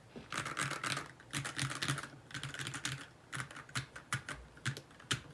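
NK65 Entry Edition mechanical keyboard, with a polycarbonate case and lubed linear Gateron switches, being typed on at a steady pace. Quick runs of keystrokes are mixed with single strokes, and there is a fast flurry about half a second in.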